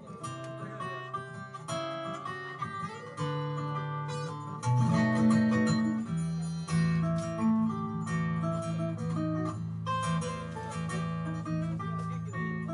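Solo acoustic guitar playing an instrumental piece live: a plucked melody over held bass notes.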